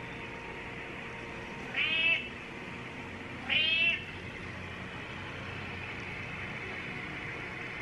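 A cat meowing twice: two short meows about a second and a half apart, over a steady faint background hum.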